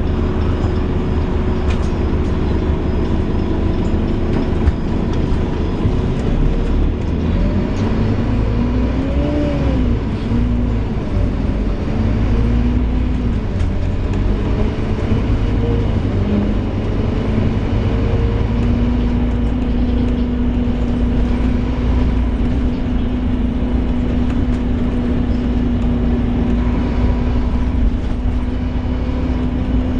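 Inside a Scania Omnilink K230UB bus on the move: steady low running rumble, with a pitched groan that rises and falls in pitch several times, then settles into a steady drone from a little past halfway.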